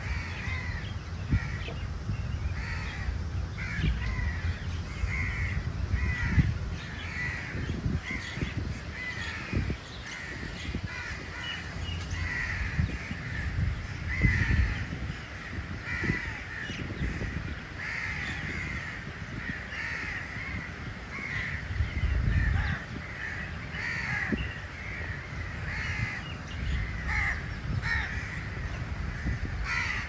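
House crows cawing, several birds calling over one another in short, harsh caws about once a second.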